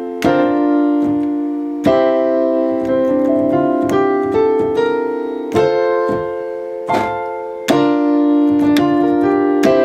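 Piano chords played on a keyboard: a slow progression in F major, about six chords each struck and held to ring for one to four seconds, with a short line of notes stepping upward in the middle.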